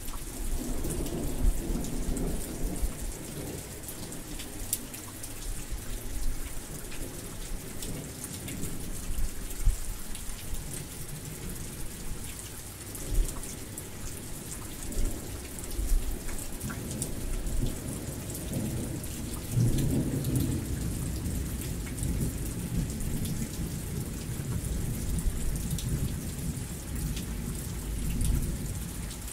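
Heavy rain falling steadily, with thunder rumbling low: a roll near the start and a longer one from about fifteen seconds in, loudest around twenty seconds.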